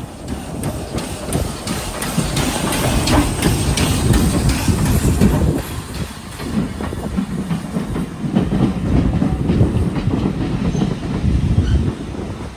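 Railway train rolling past slowly, its wheels clacking over the rail joints, with a dip in the noise about halfway through.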